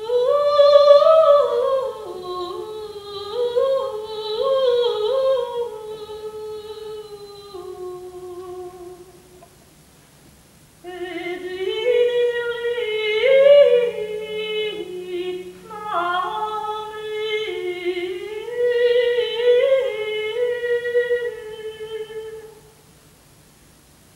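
A woman's solo voice singing a slow, wordless melody without accompaniment, in two long flowing phrases with a breath pause about ten seconds in.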